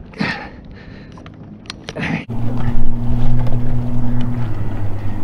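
A few brief handling sounds while a bass is unhooked, then, a little past two seconds in, a louder steady boat-motor hum with wind on the microphone; the hum shifts pitch about four and a half seconds in.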